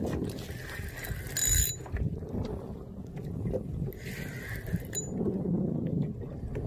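Spinning fishing reel working in two short whirring bursts, about a second and a half in and again around four seconds, over a steady rumble of wind and water.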